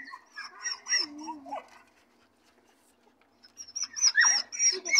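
Dog whining in short, high-pitched whimpers, in two bouts with a pause of about a second and a half between them. It is whining to get to another dog.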